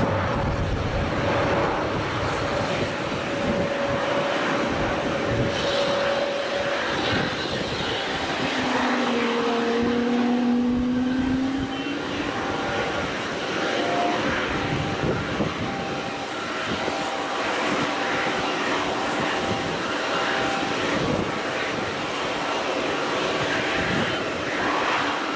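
Jet engines of a taxiing Shenzhen Airlines airliner running at low taxi power: a steady rushing noise with a thin high whine on top.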